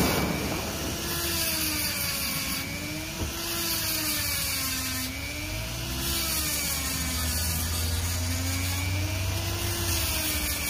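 Small corded rotary tool running with its bit against a chainsaw chain's cutters, sharpening the chain. It gives a high whine whose pitch dips and rises again every couple of seconds.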